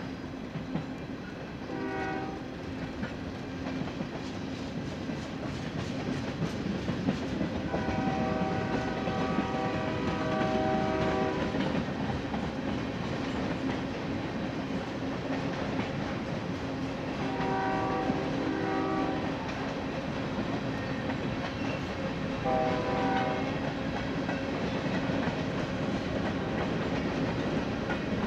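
Union Pacific freight locomotive's air horn sounding four blasts: a brief one, a long one of about four seconds, one of about two seconds, and a shorter one near the end. Under it runs the steady rumble of the moving train, with wheels clicking over rail joints.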